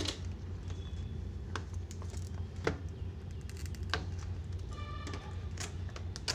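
Stiff clear plastic blister packaging being cut with a utility knife and handled: scattered sharp clicks and crackles of the plastic, over a steady low hum.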